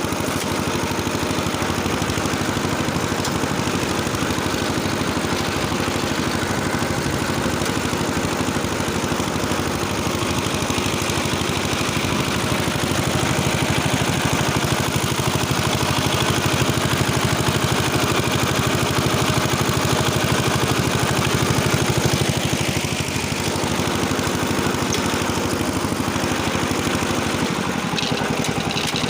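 Engine of a tractor-driven rotary tiller running steadily under load as the tiller works the soil, swelling slightly about two thirds of the way through.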